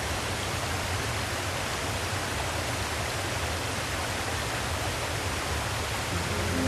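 Small waterfall and mountain stream cascading over rocks: a steady rush of water. Music fades in near the end.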